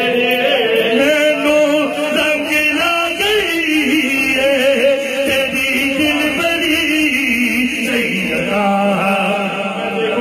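Several voices chanting together, a devotional chant whose melody rises and falls.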